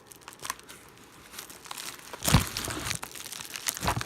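Product packaging being crinkled and pulled at by hand in an attempt to open it: a few light crackles at first, then a denser, louder stretch of crinkling from about two seconds in.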